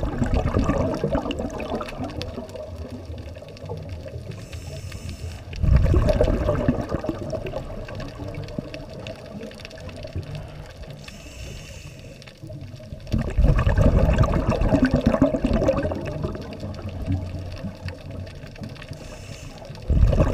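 Scuba diver's regulator breathing heard underwater through a GoPro's waterproof housing: loud surges of exhaled bubbles about every seven seconds, with a quieter hiss and bubbling between them.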